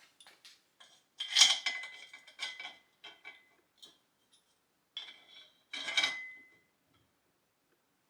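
Metal dumbbell-rack frame pieces and bolts clanking and clattering as they are handled and fitted together, in a few separate bursts; the loudest knocks, about a second and a half in and about six seconds in, leave a brief metallic ring.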